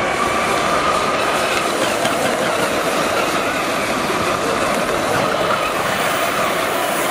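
JetCat SPM5 model gas turbine in an RC hydroplane running at high speed as the boat skims across the water, a steady high whine that wavers slightly in pitch over the rush of the hull and spray.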